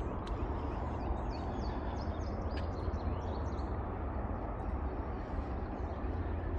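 A small bird chirping in a quick run of short, high, falling notes from about one to three and a half seconds in, over a steady low outdoor rumble.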